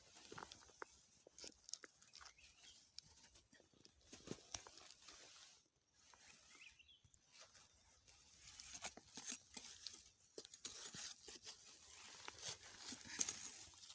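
Faint, irregular rustling and crackling of dry leaves and plant stems, with small snaps, as krachiao (Siam tulip) flowers are picked by hand. The crackling grows busier in the second half.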